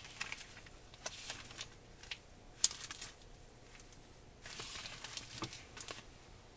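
Handling noise from gloved hands turning over a Daiwa Super Tanacom S600 electric fishing reel: fabric gloves rustling on its plastic housing, with scattered light clicks and knocks, the sharpest about two and a half seconds in.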